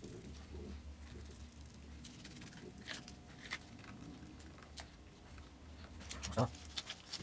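Paintbrush dabbing polyester resin into chopped strand fiberglass mat: soft irregular patting and light clicks, with a louder dab about six seconds in.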